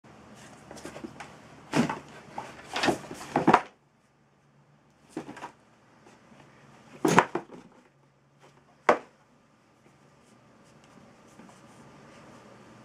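Two cats play-fighting: a flurry of thumps and scuffles of paws and bodies against a cardboard box and the wooden parquet floor in the first few seconds, then single sharp knocks about five, seven and nine seconds in.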